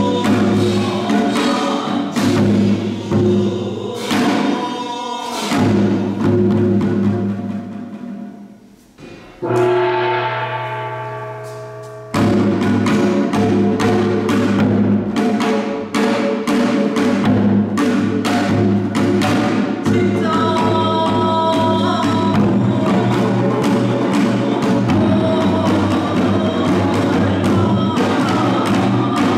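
Korean traditional ensemble music: janggu hourglass drums and percussion beating dense strokes over held sustained tones. About nine seconds in the music nearly drops away and a single ringing struck tone fades out, then the drumming comes back dense and steady.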